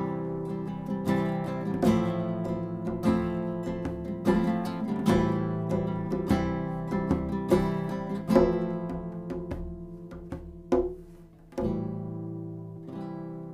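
Acoustic guitar music of picked notes and strums that thins out near the end, the last chords left to ring and fade.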